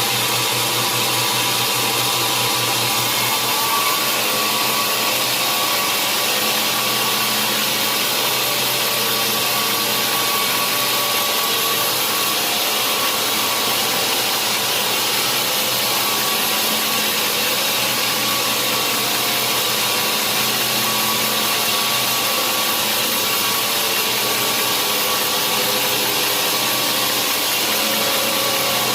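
Sawmill saw running steadily, a continuous loud mechanical noise with a steady whine over it.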